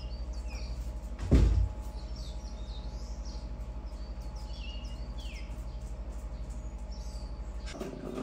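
Birds chirping in short, falling-pitched calls over a steady low pulsing hum, with one loud thump about a second and a half in.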